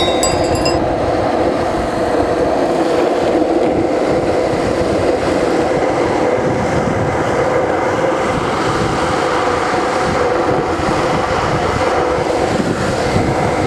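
Cruiser skateboard wheels rolling fast over rough asphalt: a loud, steady rumble with a faint hum, heard close to the board.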